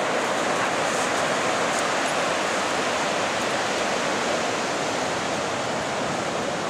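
Ocean surf breaking on a beach: a steady rushing hiss of waves and foam.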